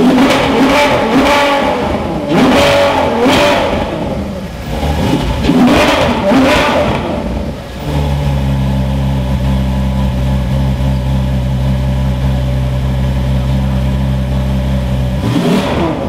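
Ferrari F12 Berlinetta's V12 engine revved while standing, three sharp blips that rise and fall in the first seven seconds or so, then settling to a steady idle, with one more short blip just before the end.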